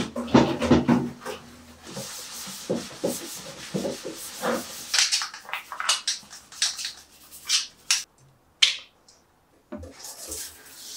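A small brush scrubbing a plastic trash bin in short, irregular rubbing strokes, with a brief pause about eight seconds in. Near the end comes a soft hiss of water spraying from a shower head.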